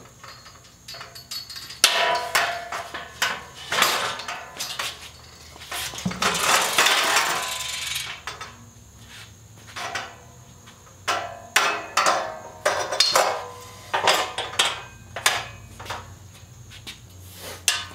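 Steel frame and steel table tops of an Eastwood Cut-N-Weld folding work stand clanking and knocking as the tubular legs are unfolded and the tops are set in place. There is a longer metal scrape about six seconds in.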